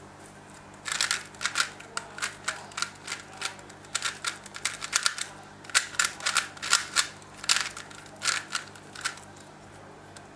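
3x3 Rubik's speedcube turned by hand through a solve: a quick, irregular run of plastic clicks and clacks, several a second, starting about a second in and stopping about nine seconds in.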